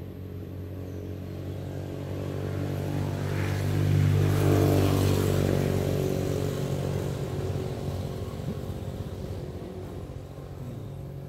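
A motor vehicle's engine hum, with a hiss of road noise, that grows louder to a peak about four to five seconds in and then fades as it passes by.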